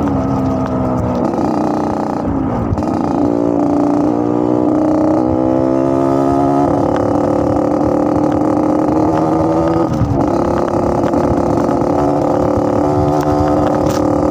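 Yamaha RX-King's single-cylinder two-stroke engine being revved, with the snoring, throaty exhaust note riders call 'ngorok'. The revs climb over a few seconds, hold high, dip briefly about two-thirds of the way through, then hold again.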